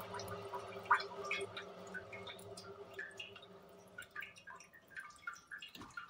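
The spin-dryer basket of a 1955 EAYa-3 washing machine is coasting down after a spin cycle. Its low hum fades away over the first few seconds, while water drips and trickles in the tub with scattered small splashes.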